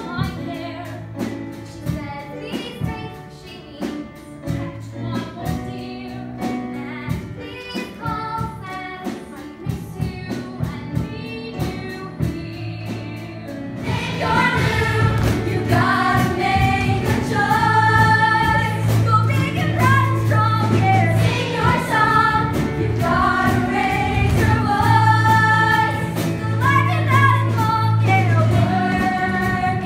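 Musical theatre song: singing over a light backing with a ticking beat, then about fourteen seconds in it cuts to a louder, fuller up-tempo number with a strong bass line, sung by a group of young voices.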